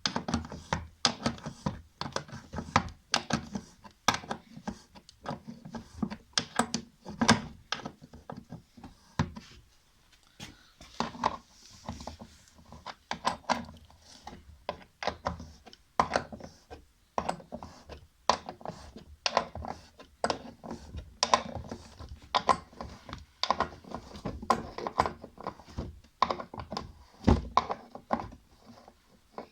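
Irregular clicks and knocks of hand tools tightening the screws on a washing machine's belt drive, with the belt freshly tensioned.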